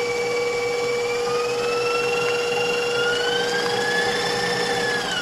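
Bowl-lift stand mixer running as it beats almond cream: a steady motor whine whose pitch slowly rises through the middle, then falls away near the end as the mixer winds down.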